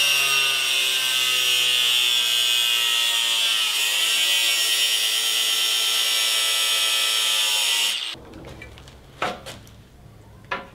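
Angle grinder with a cutoff wheel cutting through a steel circular saw blade: a loud, steady high whine with grinding hiss, dipping slightly in pitch partway as the wheel loads up. It cuts off suddenly about eight seconds in, followed by two faint knocks.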